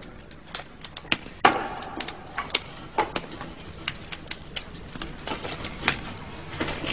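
Irregular sharp clicks and knocks, several a second, over a steady background noise, with a louder knock about a second and a half in.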